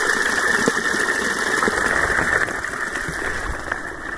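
Rushing water of a fast, deep mountain stream being waded through: a steady noisy rush that eases off about two and a half seconds in.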